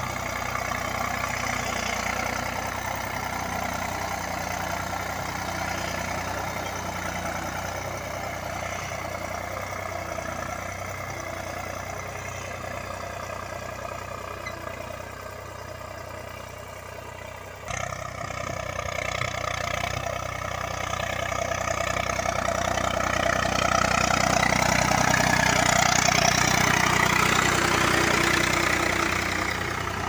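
Eicher 485 tractor's three-cylinder diesel engine running steadily under load while pulling a tine cultivator through the soil, growing louder in the last third as the tractor passes close by.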